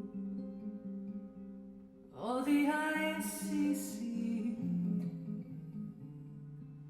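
Recorded music played through a 300B single-ended tube amplifier and floor-standing loudspeakers. It is a slow jazz ballad with plucked guitar and singing. Held notes fade out, and a new, louder phrase comes in about two seconds in.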